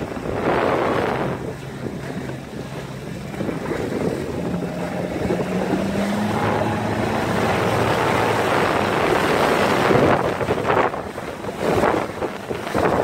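Motorboat under way at speed: wind buffets the microphone over the rush of the wake and the faint steady note of the outboard motor, which rises a little about four seconds in. Louder gusts of wind come near the start and again in the last few seconds.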